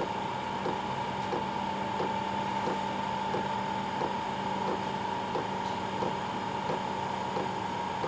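Chinese diesel heater running: a steady whine and hum under the regular ticking of its fuel dosing pump, about one and a half ticks a second. The fan is spinning back up toward its target speed as the controller compensates for the low 10 V supply.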